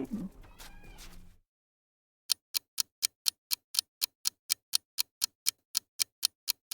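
A clock ticking evenly, about four ticks a second, starting about two seconds in: a quiz countdown timer. Before it, in the first second or so, a camel's growling call fades out.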